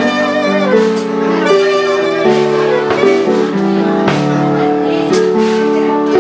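Music: held chords that change every half second or so. A wavering melody line rides on top at the start, and there are a few sharp crashes.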